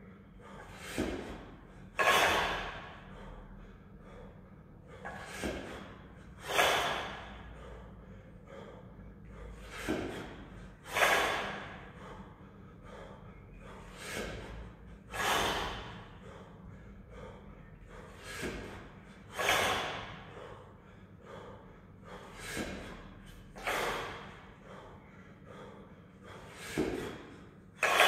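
A kettlebell lifter's hard breathing, paired with each double-kettlebell jerk: a short breath and then a louder, sharp exhale, the pair returning about every four seconds, seven times in all.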